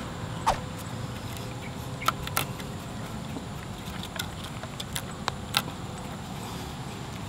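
Paracord being handled and pulled tight around wooden poles while a clove hitch is tied: scattered sharp clicks and small rubbing noises from the cord and wood, over a steady low background hum.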